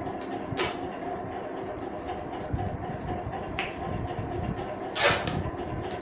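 Adhesive tape being pulled off its roll in three short rips, the last one about five seconds in the longest and loudest, over a steady background hum.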